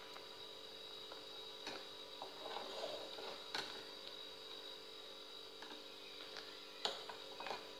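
A steel spoon stirring milk in an aluminium saucepan on a gas stove, with a few light clicks of the spoon against the pan over a faint steady hum.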